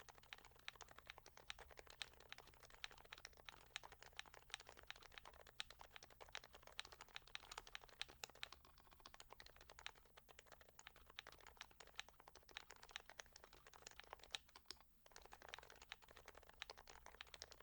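Continuous typing on a Sho S60v2 custom keyboard with Topre-style rubber-dome switches (45 g domes with sliders and silencing rings) and HHKB Pro 2 blank keycaps: a fast, quiet stream of soft keystrokes, with a brief pause about fifteen seconds in.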